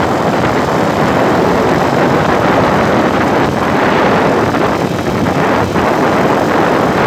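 Steady rushing noise of a vehicle travelling at highway speed: road and wind noise with no distinct engine tone.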